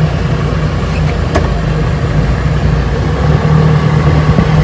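Car driving, a steady low engine and road rumble, with one sharp click about a second and a half in.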